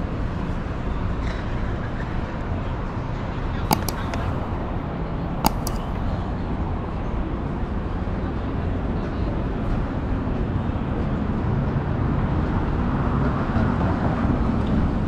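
City street traffic noise, a steady hum of passing vehicles. Two sharp clicks come a few seconds in, and the traffic grows louder near the end.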